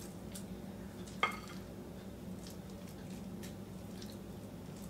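Faint scraping and dabbing of a silicone spatula spreading a thick, creamy spinach mixture over chicken breasts in a baking dish. One brief sharper tap comes about a second in, over a low steady hum.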